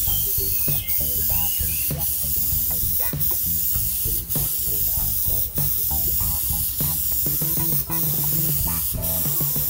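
Airbrush spraying clear coat onto a painted swimbait lure: a steady hiss of air and paint mist.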